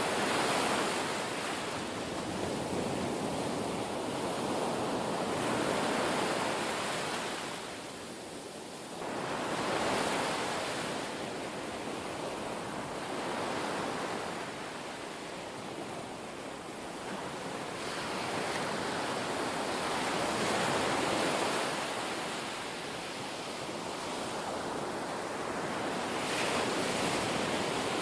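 Ocean surf washing in and drawing back, its noise swelling and easing in slow, uneven surges every few seconds.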